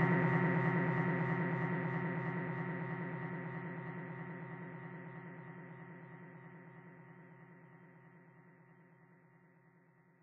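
Electronic music from ReBirth RB-338's emulated TB-303 synths and 808/909 drum machines fading out: held, hum-like tones with a fast, even pulse, dying away to near silence by the end.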